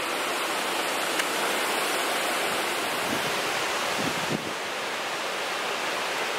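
Strong, gusty wind rushing through the leaves of tall trees ahead of a thunderstorm, a steady rushing noise with some wind buffeting on the microphone. It grows a little quieter after about four seconds.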